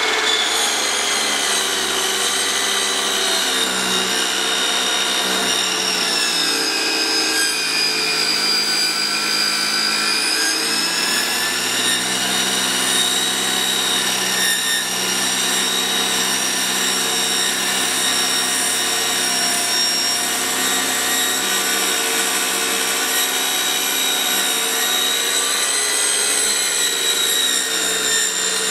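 Technocrimp hydraulic-hose cut-off machine running, its motor spinning the cutting disc through a high-pressure hose. The steady whine dips in pitch and recovers a few times during the cut.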